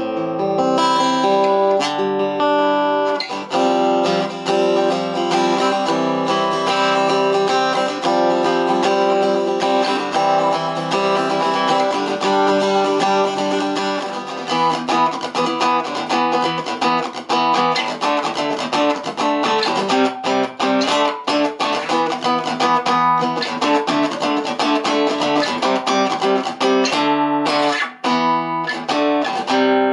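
Fender CC-60SCE acoustic-electric guitar with a Fishman preamp, played through a Topsound A20 acoustic guitar amplifier with every EQ control at the middle. A continuous passage of picked notes and chords, with an even, balanced tone.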